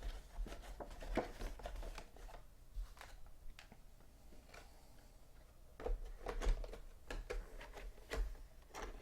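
Light handling noises: scattered clicks, taps and rustles of packaging and a mini helmet being handled, busier in the first couple of seconds and again from about six seconds in, with a quieter stretch between.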